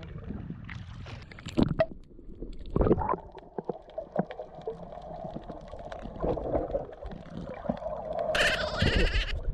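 Sea water sloshing and bubbling against a camera held at and just under the surface, muffled, with scattered knocks. A brighter burst of splashing comes near the end, from a snorkeller kicking at the surface.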